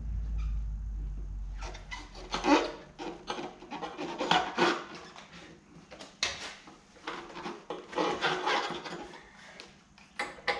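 Repeated bursts of rubbing and rasping as hands work the fuel line onto the motorcycle's new fuel pump fitting, the loudest about two and a half and four and a half seconds in.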